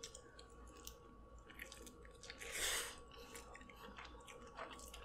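Faint close-up wet chewing and mouth clicks of someone eating seafood coated in alfredo sauce, with a longer wet sucking sound about two and a half seconds in.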